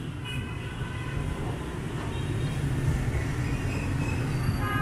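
Street traffic at a city intersection: motorbike and light truck engines passing, a steady low rumble that grows a little louder toward the end.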